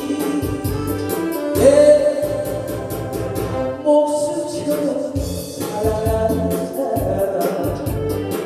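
A man singing a Korean trot song in long held notes with vibrato, over an instrumental backing track with a steady beat.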